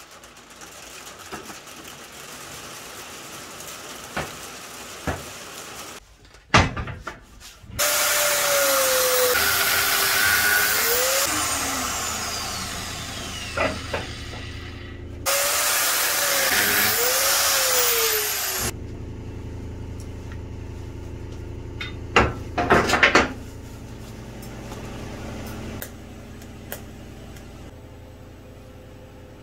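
A handheld power tool working the steel driveshaft in two long loud runs, its pitch sagging and recovering as it bites. Sharp metal knocks come before the first run and a few seconds after the second.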